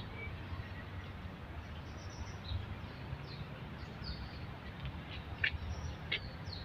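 Faint outdoor ambience of small birds chirping: scattered short, high chirps, with two sharper ones about five and a half and six seconds in, over a low steady rumble.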